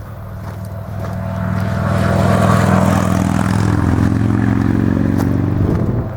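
A motor vehicle's engine running, growing louder over about two seconds, holding steady, then dropping away shortly before the end, with a hiss over the engine note.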